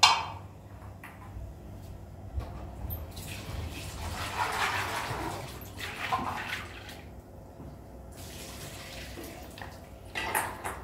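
Water running for about three seconds in the middle, over a faint low hum, with a sharp click at the very start.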